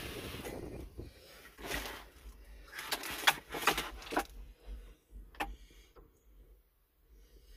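A brief rush of noise, then a series of sharp clicks and knocks over a few seconds, fading to quiet.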